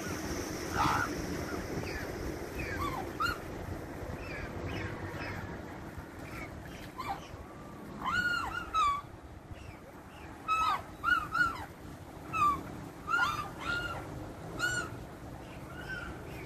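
Mute swan cygnets giving repeated short, high whining peeps that rise and fall, coming thicker in the second half, over a steady low hum.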